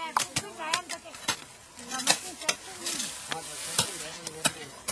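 Sickles cutting through henna stems by hand: a quick, irregular series of crisp snips and crackles, several a second, with the plants rustling.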